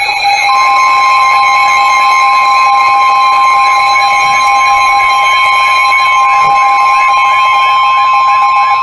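NOAA Weather Radio alert alarm: a loud, quickly repeating electronic warble over steady tones. About half a second in it is joined by the National Weather Service's steady 1050 Hz warning alarm tone, which marks a warning about to be broadcast.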